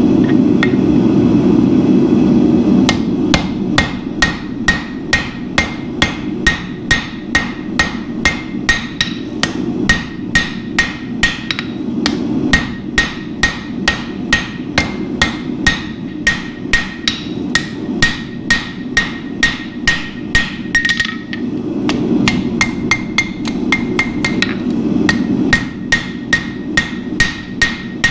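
Blacksmith's hand hammer striking hot steel bar stock on an anvil, a steady rhythm of about two blows a second, each with a bright anvil ring, with a short pause near the end. A steady rushing noise runs underneath and is heard alone for the first few seconds.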